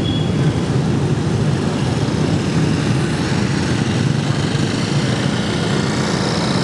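Steady motorbike engine and street traffic noise, heard from a moving motorbike riding among many scooters.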